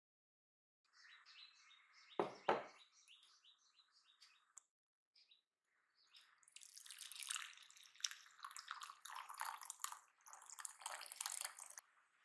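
Hot water pouring into an empty bowl for about six seconds, starting about six seconds in. Birds chirp in the background throughout, and two sharp knocks come about two seconds in.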